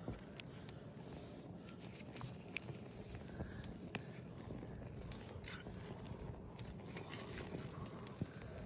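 Wind rumbling on the microphone, with scattered scrapes and a few sharp clicks.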